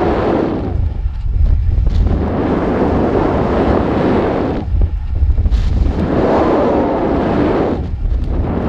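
Wind buffeting the microphone of a camera on a rising weather balloon payload: a loud, deep rumble that surges and eases about three times.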